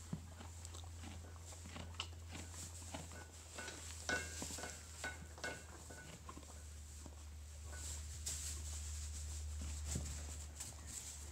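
Horses moving in straw bedding: soft scattered rustles and hoof steps in the straw, over a steady low hum.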